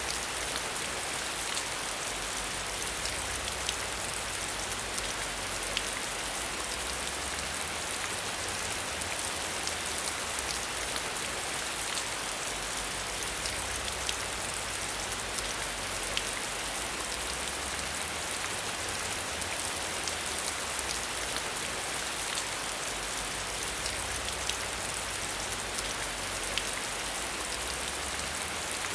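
Steady rain falling, a continuous even hiss with many small drop ticks against a surface.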